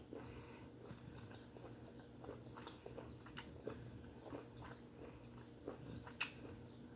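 Faint chewing and wet mouth sounds of someone eating steamed conch, with scattered small clicks and smacks.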